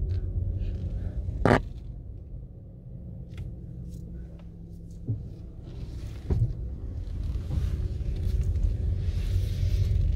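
Low, steady rumble that eases off for a few seconds and then builds again, with a sharp click about one and a half seconds in and two softer knocks later.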